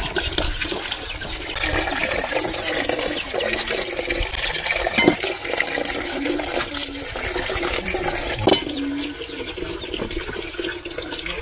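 Water splashing and sloshing with wet handling noises as a slaughtered chicken is plucked and dunked in a pan of hot water to loosen its feathers.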